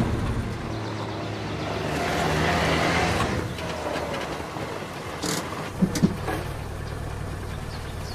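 Trabant 601 Kübel's two-stroke, two-cylinder engine running as the car drives, with two sharp knocks close together about six seconds in.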